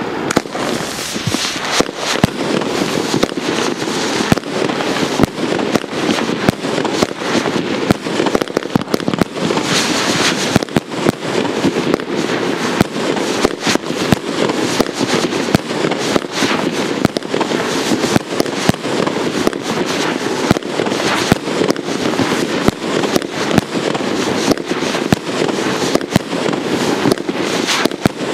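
A 1.2-inch Blazing Diamonds 100-shot fireworks cake firing in a continuous rapid volley. Several shots a second launch and burst over one another, with no pause.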